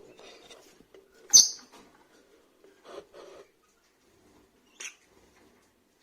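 Rosy-faced lovebirds giving a few short, sharp squeaky chirps, the loudest about a second and a half in, with fainter ones around three and five seconds.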